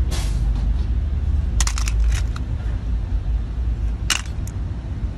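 Hard plastic circuit-breaker cases clicking and clattering against each other as they are handled over a basket of breakers. There is a click at the start, a short run of rattling clicks about two seconds in, and another click about four seconds in, over a steady low rumble.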